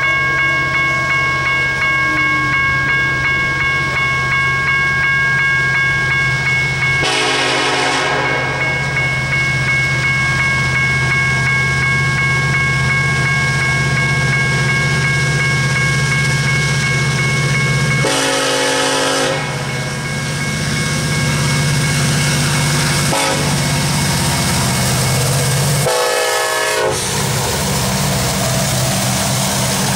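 Level-crossing warning bell ringing steadily while an approaching BNSF EMD SD70ACe diesel locomotive sounds its horn in the grade-crossing pattern: two long blasts, a short one and a long one, the first about seven seconds in. A steady low diesel rumble runs underneath as the lead locomotive reaches the crossing.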